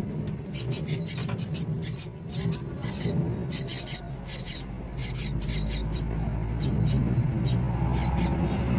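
Myna nestlings begging in the nest: quick runs of thin, very high-pitched squeaks, thinning out over the last few seconds, over a low background rumble.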